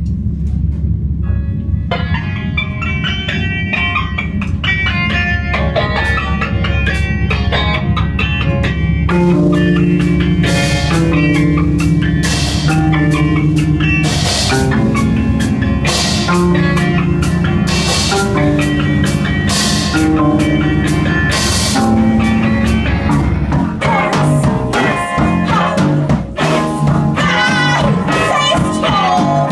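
A live band playing: picked guitar notes, with drums coming in about nine seconds in and carrying on under the guitar.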